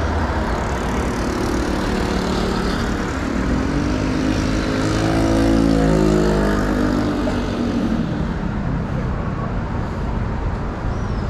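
Steady city road traffic. An engine passes about four to seven seconds in, rising and then falling in pitch, loudest around six seconds in.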